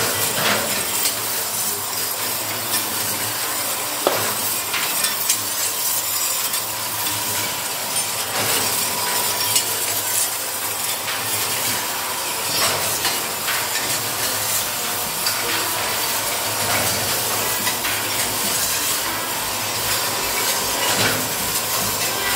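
Gari frying machine running: its motor-driven cross-shaped stirring arms sweep and scrape around the empty stainless-steel pan with a steady hum and scattered metallic clinks.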